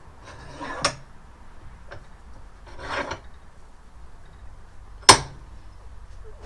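Hands working a motorcycle fork leg clamped upside down in a bench vise: a short rubbing scrape about a second in, another about three seconds in, and a sharp knock about five seconds in, the loudest sound.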